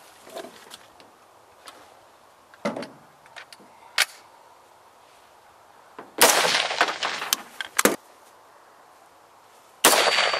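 Two rifle shots about four seconds apart, each with a long echoing tail: a Springfield M1A in .308 fired from a pickup bed. Faint clicks and knocks come before them.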